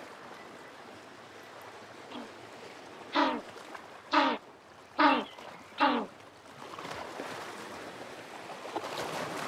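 African penguin (jackass penguin) giving a run of four short, falling, donkey-like honking notes about a second apart, from about three seconds in to about six seconds in, over a steady background hiss.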